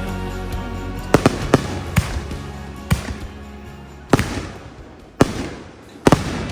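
Fireworks going off: a string of sharp bangs about a second apart, some in quick pairs, with the loudest single bangs near the end.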